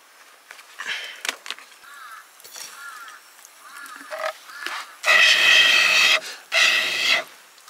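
Animal calling: a run of short, rising-and-falling calls, then two loud, longer calls about five and six and a half seconds in.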